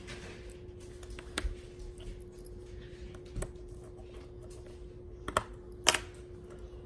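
Handling noise from a small relay module and its wire leads: scattered light clicks and taps, the sharpest about six seconds in, over a faint steady hum.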